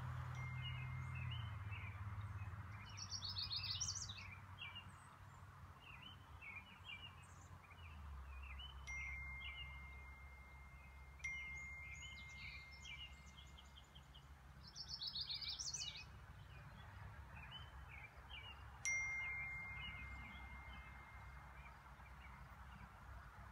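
Songbirds singing, with two loud rapid warbling phrases and scattered chirps between them. A chime sounds one clear note four times, each ringing on for a few seconds.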